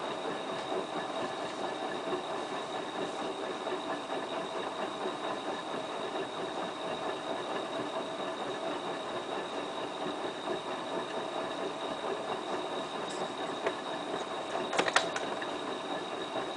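Hotpoint Ultima WT960 washing machine running steadily on its wool cycle, with a few clicks about fifteen seconds in.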